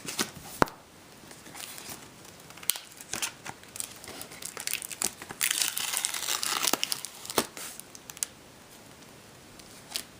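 Taped mail packaging being unwrapped by hand: crinkling and tearing, with a few sharp clicks, the loudest about half a second in, and the busiest crinkling from about five and a half to seven seconds in.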